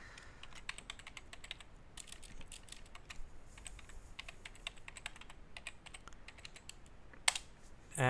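Computer keyboard typing: a run of light, irregular key clicks, with one sharper click about seven seconds in.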